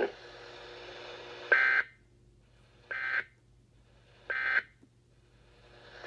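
Three short electronic beeps from a weather radio receiver, evenly spaced about a second and a half apart, with faint radio hiss between them.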